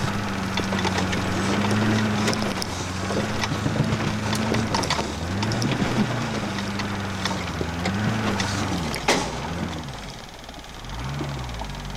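Off-road competition truck's engine, heard from inside the cab, revving up and falling back again and again as it crawls over rocks, with knocks and clatter from the body and cage throughout. There is a sharp bang about nine seconds in; the engine then drops back before one more short rev near the end.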